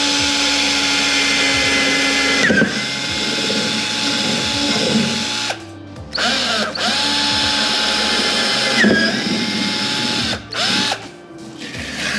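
Cordless drill boring holes through a leather-covered hard saddlebag: two long runs of steady motor whine, the pitch dipping partway through each as the bit bites, then a short burst near the end.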